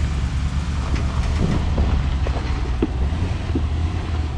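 First-generation Toyota Sequoia's 4.7-litre V8 running at low revs as the SUV crawls slowly up a rocky trail, a steady low rumble with a few brief sharper sounds about midway.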